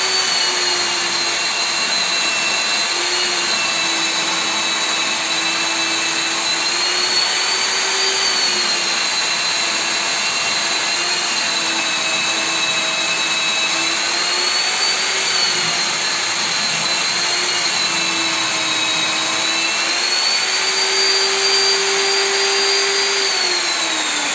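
Electric core drill with a diamond core bit running steadily while core cutting, its motor pitch wavering slightly as the load changes. Near the end the motor is switched off and winds down with a falling pitch.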